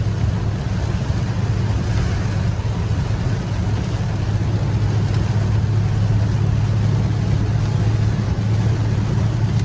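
Steady engine and road rumble heard from inside a car driving through heavy rain, with the hiss of rain on the car and of tyres on the wet road.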